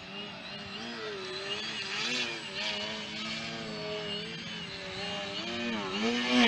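Skywing Extra 330SC RC aerobatic plane flying low past, its motor and propeller whining and rising and falling in pitch again and again as the throttle is worked.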